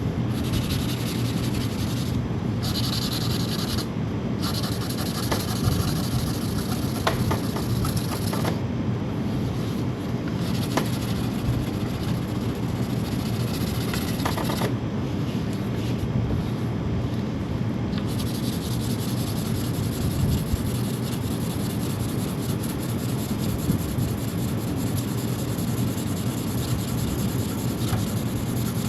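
Sanding the painted bodywork of a Kawasaki Ninja H2: a steady rubbing of abrasive on the panel surface that runs on without a break.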